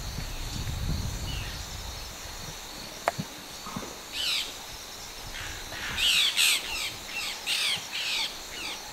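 Wild birds calling in the open bush: short, quick falling notes, one about four seconds in and then a run of about five in a row. Behind them is a steady high-pitched background sound, with a low rumble in the first couple of seconds.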